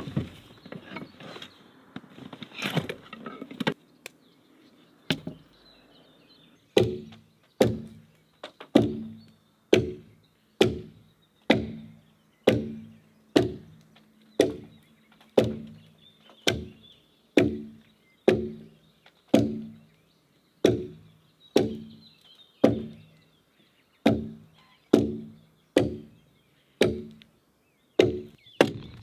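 Axe chopping into a log: sharp, evenly spaced strokes about one a second, each ringing briefly in the wood. Before the chopping starts there are a few seconds of scattered knocks and rustling of gear being handled.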